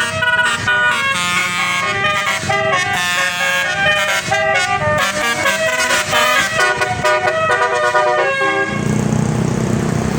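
Basuri multi-tone telolet bus horn playing a quick tune of stepped notes, which stops about nine seconds in; after it a low, steady engine hum with street noise.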